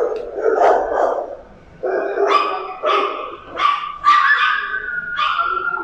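Rottweilers in kennel runs barking, a series of separate barks every half second to a second, with a longer, higher whining call from about four seconds in.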